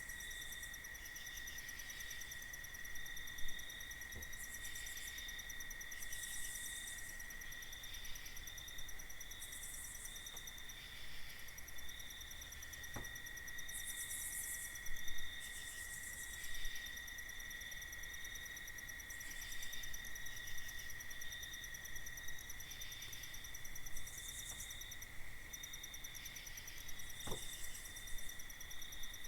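Night insect chorus of crickets trilling steadily in several overlapping high, pulsing voices, with a few faint ticks spread through it.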